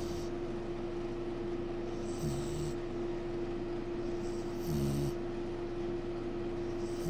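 Snoring: short, evenly spaced snores about every two and a half seconds, three of them, each a low rumble with a hiss, over a steady hum.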